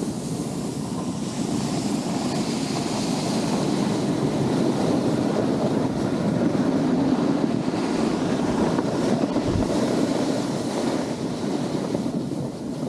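Snowboard sliding and turning over packed snow, a steady scraping rush that swells and eases, mixed with wind buffeting the camera microphone.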